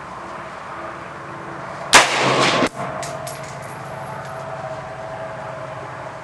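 A single shot from a .223 AR-style rifle about two seconds in, with a short echo trailing after it, followed by a few light clinks.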